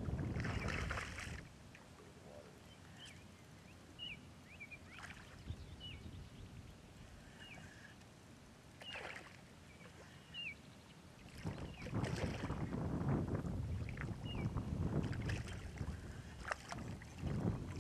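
A hooked striped bass thrashing and splashing at the water's surface close to shore. It comes in loud bursts in the first second or so and again through the second half, with a quieter stretch between.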